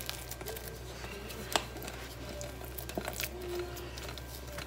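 Silicone spatula scraping sticky bread dough out of a glass bowl: soft squishing and scraping with scattered clicks of the spatula against the glass, the sharpest about a second and a half in.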